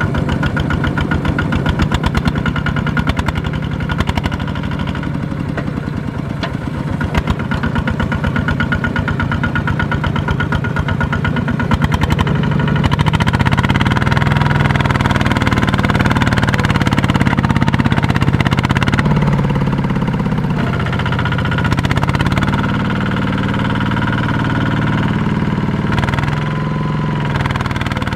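Two-wheel walking tractor's single-cylinder diesel engine running under load while it drags a loaded trailer through deep mud. It has a fast, even putting beat in the first half, and from about halfway its pitch rises and falls as the load on it changes.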